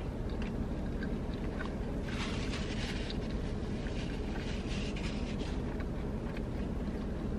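Steady low hum of a parked car's running engine, with small chewing clicks. From about two to five and a half seconds a paper napkin rustles as hands are wiped with it.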